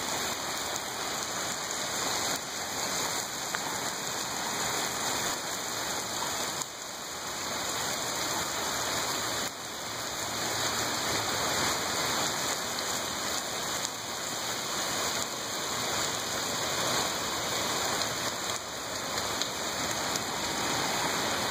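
Heavy rain pouring onto pavement, a street and lawns: a steady hiss of rain hitting hard wet surfaces.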